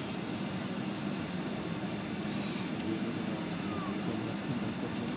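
Steady cabin noise of a Boeing 757 taxiing: its engines running at taxi power under a continuous low rumble, heard from a window seat over the wing.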